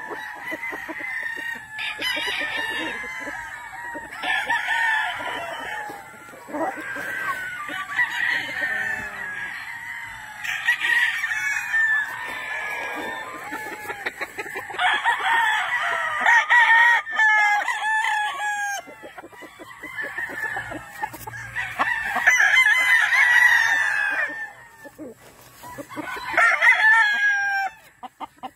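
Many gamefowl roosters crowing, the crows overlapping one after another, with some clucking; the crowing is loudest about halfway through and again a little later, then thins out near the end.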